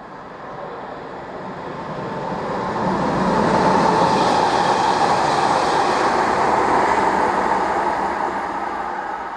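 A train passing by, its noise building to a peak about four seconds in and then fading as it goes away.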